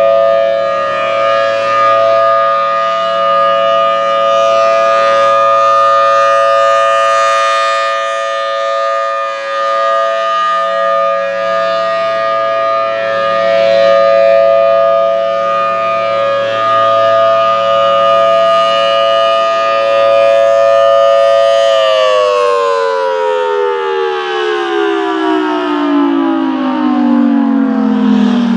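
Federal Signal Thunderbolt 1000T outdoor warning siren holding a steady two-note wail that swells and fades slightly as it turns. About 22 seconds in the motor cuts off and the pitch falls steadily as the siren winds down at the end of the test.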